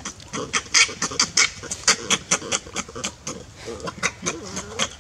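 Baby long-tailed macaque squealing in rapid, short, shrill cries, about four or five a second, the distress cries of a baby being grabbed and handled roughly by adult monkeys. The cries are loudest in the first two seconds, with lower wavering calls mixed in near the end.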